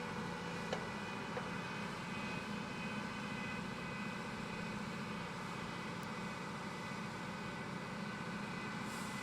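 Holz-Her ProMaster 7125 5-axis CNC woodworking machining center running: a steady machine hum with several held tones over a noisy bed, and two faint clicks in the first second and a half.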